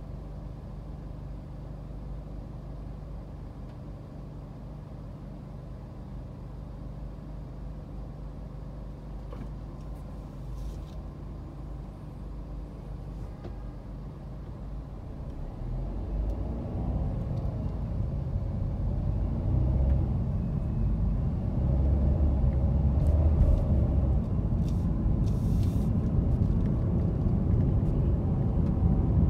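Inside a car's cabin: a steady low engine rumble while stopped in traffic, then from about halfway the car pulls away and the low engine and road rumble grows louder as it gathers speed.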